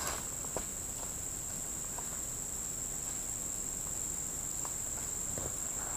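Steady high-pitched insect drone, with a few faint ticks near the start and toward the end.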